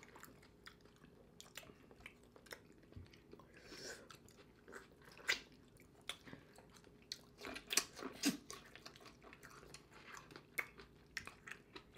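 Close-miked chewing, biting and lip smacking of two people eating a saucy vegan seafood boil, corn on the cob and sausage, with their hands: faint scattered wet clicks and smacks, a few louder ones in the middle.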